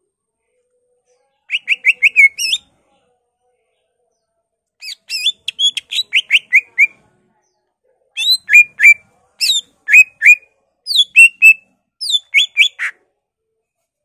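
Greater green leafbird (cucak ijo) singing loudly in three bursts of rapid, sharply falling whistled notes, with pauses between them.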